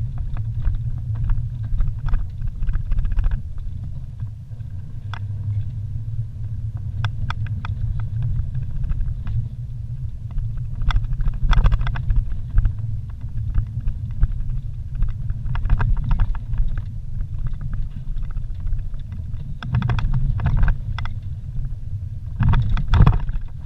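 Vehicle driving over a rough dirt forest road, heard from inside the cabin: a steady low rumble with frequent knocks and rattles from the bumpy track, thickest about two thirds of the way in and near the end.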